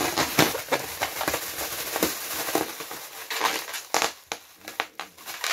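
Clear inflated plastic air-cushion packing bag being squeezed and crumpled by hand: a dense, irregular run of crinkles and crackles.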